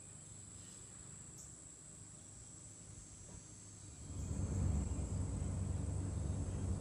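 Steady, high-pitched chorus of summer insects. About four seconds in, a low rumble comes in and grows louder than the insects.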